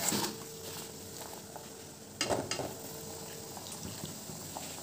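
Faint steady kitchen background hiss with a short clatter about two seconds in.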